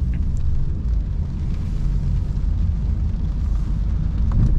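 Low, steady rumble of a Volkswagen Passat B8 diesel heard from inside the cabin as the car drives off, with a short knock near the end.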